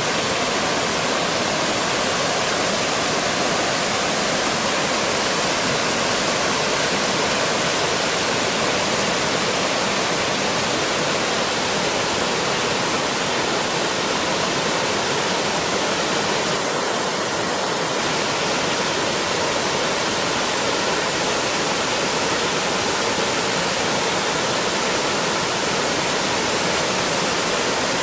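Waterfall pouring: a steady, dense rush of falling water.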